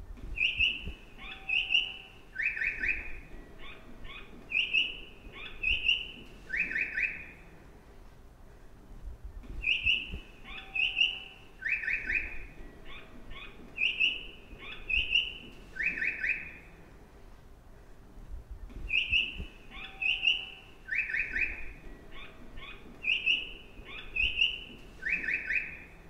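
Recorded birdsong played in a train station to mark the stairs for vision-impaired passengers: paired chirps each followed by a short trill, the same phrase looping about every nine seconds, over a faint low station rumble.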